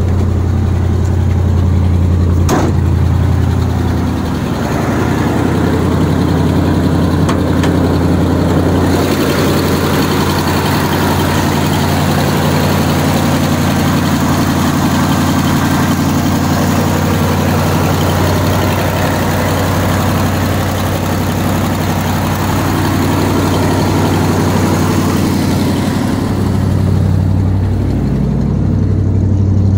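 1974 Ford F-350's 390 V8 idling steadily, still cold after a start following two weeks of sitting. For a stretch in the middle it sounds brighter and fuller, heard directly under the open hood.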